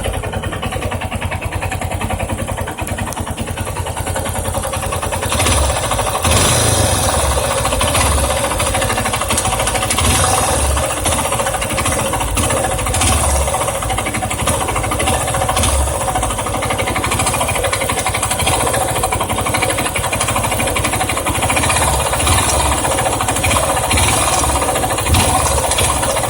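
Yamaha XTZ 250 Ténéré's single-cylinder engine running with a strange mechanical noise, which the owner wonders is a valve or the cam chain and which is put down to the tensioner and bearings. It gets somewhat louder about five seconds in.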